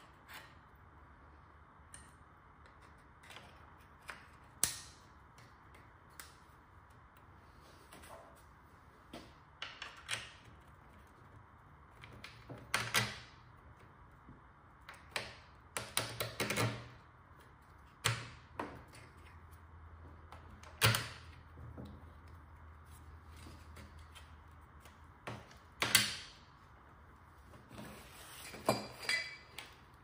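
Irregular clicks, taps and knocks of hard plastic and metal parts and hand tools handled during repair of a spray drone's arm-lock mechanism, as a rubber sleeve, bolt and spring are fitted and a screw is driven.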